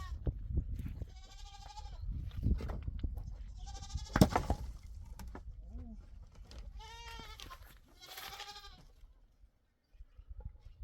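Livestock bleating: four long, wavering calls at even intervals, the last two close together. A sharp knock about four seconds in, over a low rumbling background.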